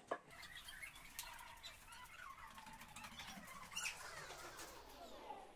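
Ceramic tiles being handled: one sharp knock just after the start as a tile edge meets the other tile or the floor, then faint scraping and rustling as hands adjust the tiles on the carpet.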